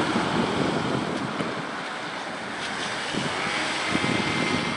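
Iveco Daily ambulance driving past, its engine and tyre noise easing off as it moves away, with wind on the microphone.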